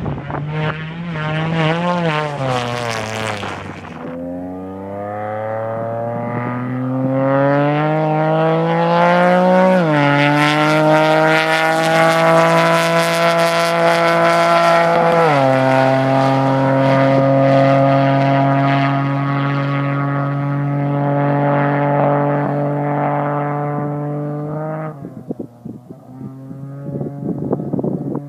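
Off-road race vehicle's engine under hard acceleration. Its note climbs, drops sharply twice at upshifts, holds steady at speed, then falls away abruptly near the end as the throttle is lifted, settling to a lower, uneven running note.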